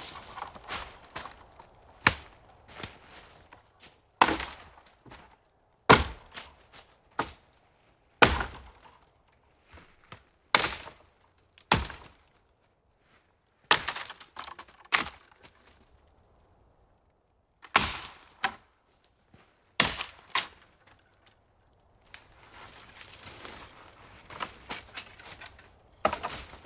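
Slow footsteps of a hiker on forest ground, each step a sharp crunch, coming about every one to two seconds with a couple of longer pauses. Near the end the steps give way to a denser stretch of crackling and rustling.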